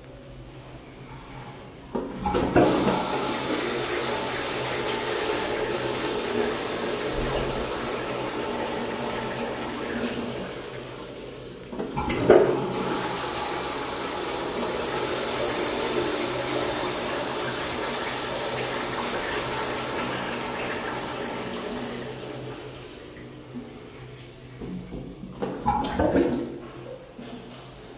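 A GROHE push-button flushometer flushes a ceramic squat toilet twice. Each time a rush of water starts suddenly, about two seconds and twelve seconds in, with a thin high whistle over it, and runs for about nine seconds before tapering off. A few knocks sound near the end.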